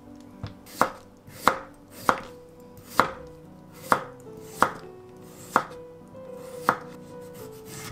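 Ceramic knife slicing a cucumber into thin diagonal slices on a wooden cutting board: about nine separate cuts, each ending in a sharp knock of the blade on the board, roughly one every 0.7 seconds.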